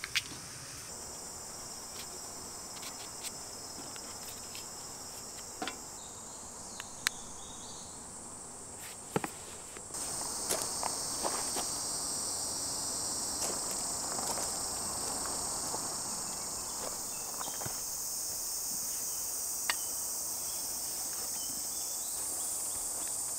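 A steady, high-pitched chorus of insects in summer woodland, growing louder about halfway through, with scattered sharp clicks and light knocks close by.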